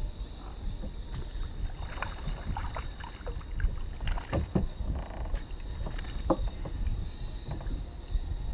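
Wind on the microphone and water lapping around a small fishing kayak, with scattered small splashes and knocks between about two and six and a half seconds in.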